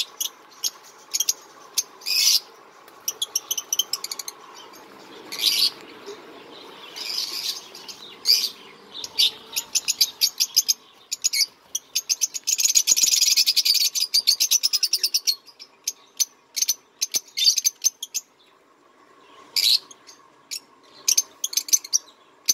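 Small cage birds chirping in short, repeated high calls, with a rapid chattering trill lasting about three seconds around the middle.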